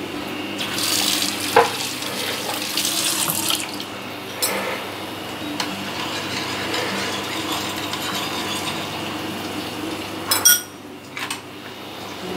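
A metal spoon stirring a thin sauce in a ceramic-coated pan: swishing liquid with scrapes and clinks of the spoon on the pan, the sharpest clinks about one and a half seconds and ten seconds in. The salt and sugar are being dissolved into the sauce.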